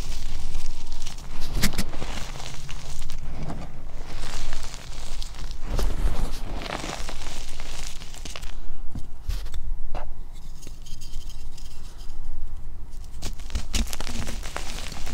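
Soft chalk blocks, some topped with glitter, crushed and crumbled by hand: irregular crunching and crackling, with powder sifting through the fingers and hands digging into loose chalk powder.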